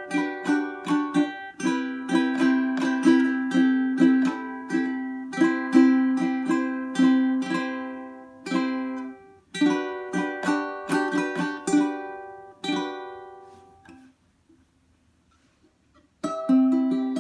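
Kmise spruce-top baritone ukulele in re-entrant gCEA tuning, played in plucked and strummed chords. The strings are tightly tensioned, giving a bright tone. About thirteen seconds in the playing stops and the last chord rings out, and it starts again near the end.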